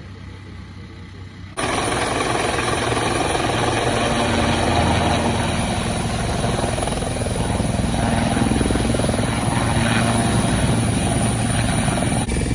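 Helicopter running close by: a loud, steady turbine whine over rotor and engine noise. It cuts in abruptly about one and a half seconds in, over a quieter engine idle.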